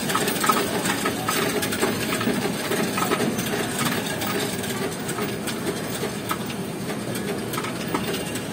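Coinstar coin-counting kiosk running, with a steady clatter of coins rattling and clicking through the sorter as they are counted.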